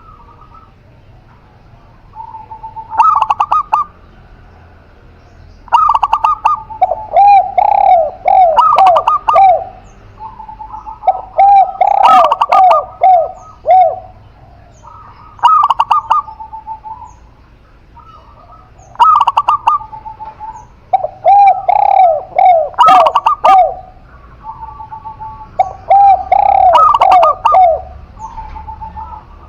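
Doves cooing, a spotted dove and a zebra dove. Each phrase repeats every few seconds: a held note, then a quick run of short falling coos.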